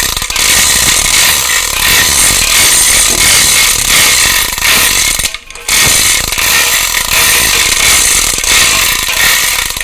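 Overhead shop hoist (sky hook) running with a loud, steady mechanical noise, stopping briefly about five and a half seconds in and then running again.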